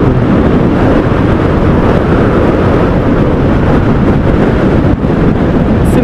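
Steady wind rush buffeting the microphone of a moving motorcycle, with the bike's engine and road noise underneath.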